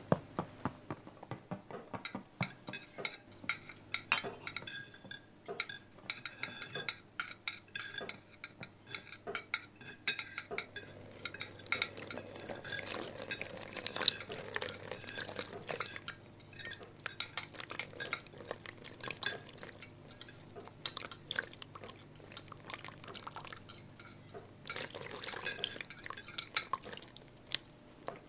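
Cutlery clinking against plates and glassware during a meal: many short, sharp clicks and taps. There are two longer stretches of liquid sound, about halfway through and near the end.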